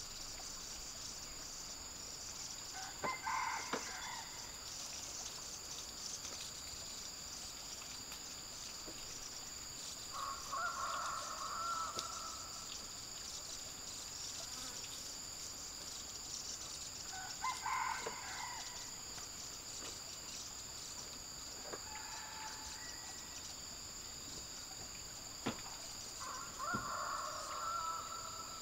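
A steady, high-pitched chorus of insects shrilling without a break, with a rooster crowing about five times, one call every five or six seconds.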